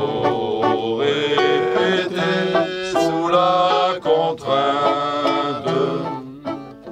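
Men singing a song together, accompanied by two strummed acoustic guitars, one of them a nylon-string classical guitar. The song dies away shortly before the end.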